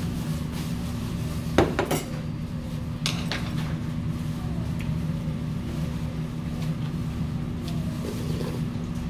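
Metal chopsticks and spoon clinking and scraping against metal bowls of rice and soup, the loudest clinks about one and a half seconds in and again around three seconds, over a steady low hum.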